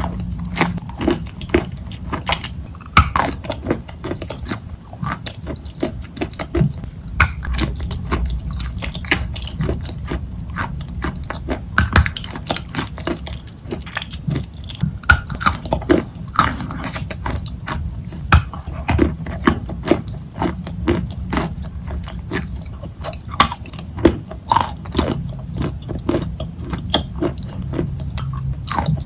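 Close-miked biting and chewing of wet chalk mixed with clay paste: soft, sticky mouth sounds broken by many sharp irregular clicks and crunches, several a second.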